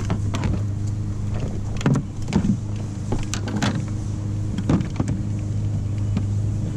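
Knocks and clatters of a bass being handled and laid on a plastic measuring board on a kayak deck, the sharpest about two, three and a half, and nearly five seconds in, over a steady low hum.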